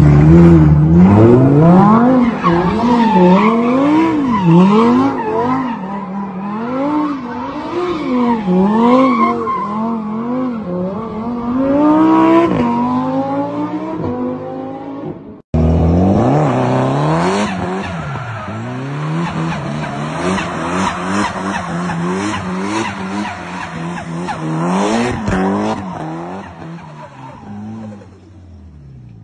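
Cars doing donuts and a burnout: an engine revving up and down again and again over squealing tires. The sound cuts off abruptly about halfway through, and a second car's revving and tire squeal starts at once.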